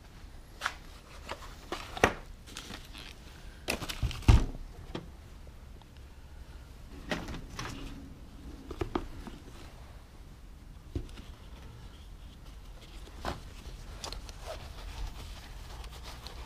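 Hand tools being handled and rummaged in a metal tool box: scattered knocks and clinks, the loudest a pair of knocks about four seconds in.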